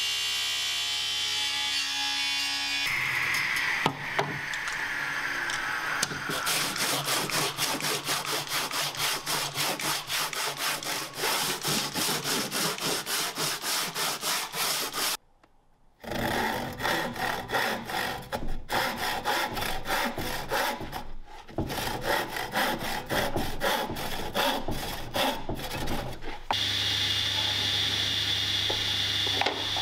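Table saw running, then spinning down with a falling whine a few seconds in. This is followed by a long run of quick, even rasping strokes on wood, about four a second, a brief gap, and more irregular scraping on wood. Near the end the table saw runs steadily again.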